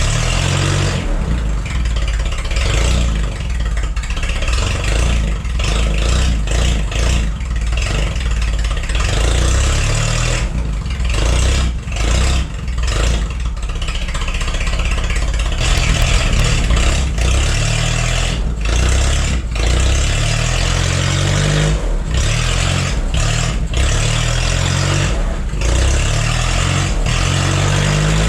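Forklift's spark-ignition engine running with its speed rising and falling. It no longer misfires now that the bad spark plug has been replaced.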